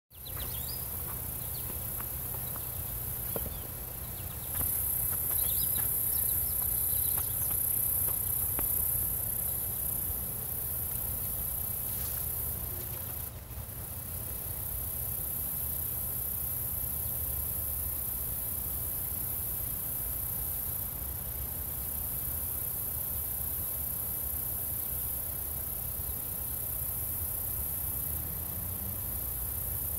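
Steady high-pitched chorus of crickets, with a low rumble of breeze on the microphone. A few brief bird chirps come in the first several seconds.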